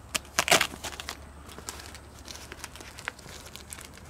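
Fabric basket liner rustling and crinkling as it is pulled off a wire frame, with a short rip of its Velcro fastening letting go about half a second in, then scattered small rustles and ticks.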